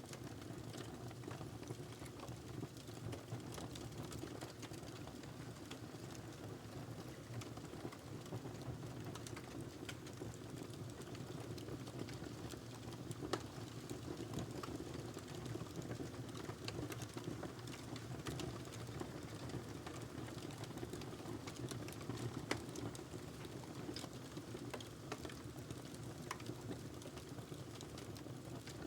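Wood fire burning in a fireplace: a steady low rumble of the flames with frequent small crackles and pops from the burning logs, a few louder pops standing out.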